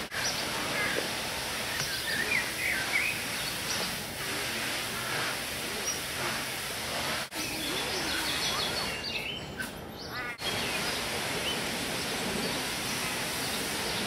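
Many short bird chirps and calls from several birds over a steady outdoor hiss, with two brief dropouts in the middle.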